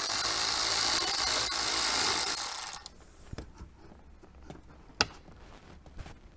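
Cordless electric ratchet running steadily as it backs out a dash panel screw, stopping about three seconds in. A single sharp click follows about two seconds later.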